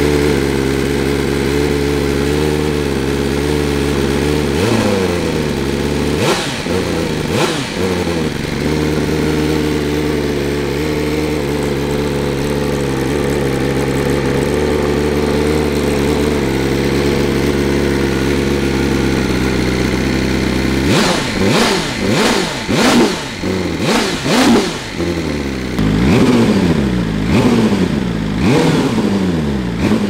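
2023 BMW S1000RR's inline-four running on a cold start through a Racefit Growler X titanium end can, idling steadily. It takes a few quick throttle blips about five to eight seconds in, and a rapid string of revs over the last nine seconds.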